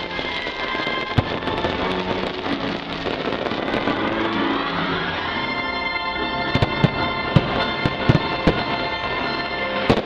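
Firework shells bursting with sharp bangs over loud show music. One bang comes about a second in, then a rapid string of bangs in the second half.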